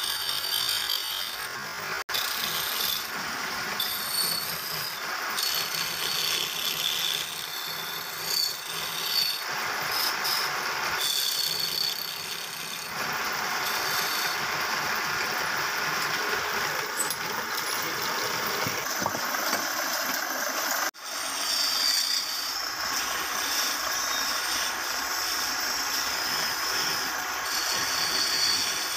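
Wood lathe spinning a wooden bed leg while hand tools work the turning wood: a continuous scraping, shaving noise. It breaks off sharply twice, about two seconds in and about twenty-one seconds in.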